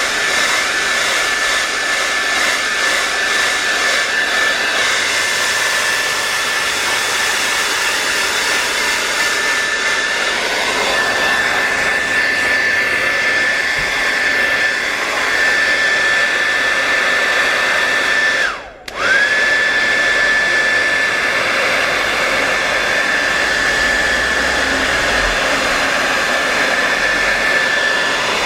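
Hot air blower running steadily, heating the phone's screen to soften its adhesive: an even rush of air with a high, steady whine. About two-thirds of the way through it cuts out for a moment and starts again, the whine rising back up to pitch.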